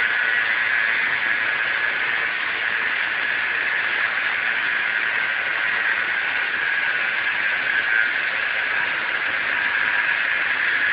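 SAW160 concrete saw running steadily, a loud, even noise that starts suddenly just before and holds without a break.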